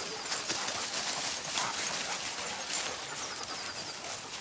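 Footsteps scuffling through thick dry fallen leaves: an irregular run of crunches and rustles.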